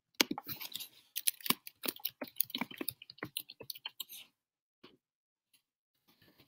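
Typing on a computer keyboard: a quick run of keystrokes for about four seconds, then a few scattered key clicks.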